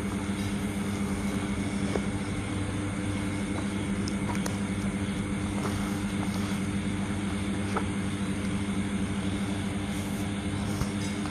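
A steady machine-like hum with a low drone, broken only by a few faint ticks.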